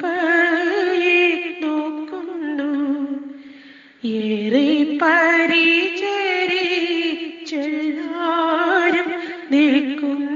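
A woman singing a Malayalam Islamic devotional song, drawing out long ornamented notes with a wavering pitch and no clear words. The voice fades out about three seconds in and comes back strongly about a second later.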